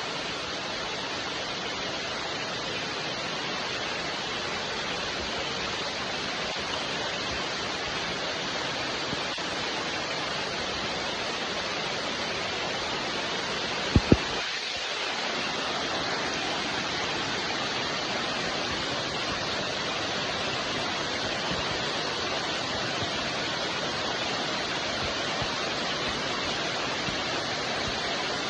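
Steady rain falling, an even dense hiss. About halfway through, two sharp clicks in quick succession.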